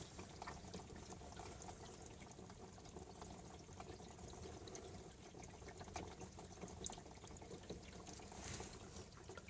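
Faint, steady sound of hose water running over the BMW X3's roof and sunroof, heard from inside the cabin, with scattered small ticks.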